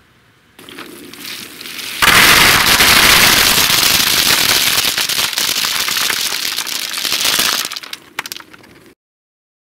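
Hickory nuts poured from a cloth bag into a plastic mesh basket: a dense clatter of hard nuts hitting the basket and each other. It starts softly, runs loud for about five seconds, then thins to a few last separate clicks as the bag empties.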